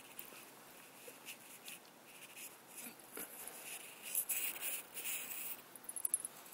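Cocker spaniel grooming herself, licking at her coat: soft, wet, scratchy sounds that come more often in the second half, with a quick run of clicks near the end.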